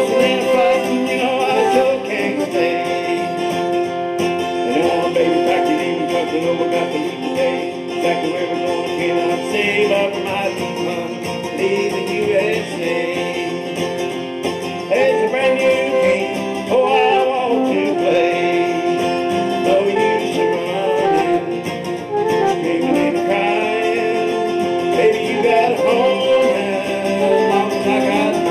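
An acoustic guitar played with a man singing along.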